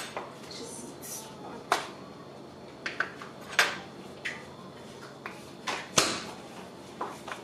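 Metal measuring spoons and small utensils clinking and tapping on a kitchen counter: a run of short, sharp clicks at irregular spacing, the sharpest about six seconds in.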